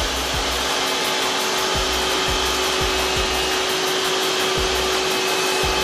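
Steady mechanical hum and rushing noise of machinery in a fire-protection pump room, with a constant low tone running through it and irregular soft low thumps.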